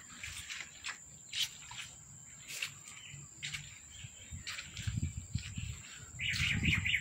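Insects droning steadily at a high pitch, with short chirps every second or so. There is a low rumble about five seconds in and a louder burst of chirping near the end.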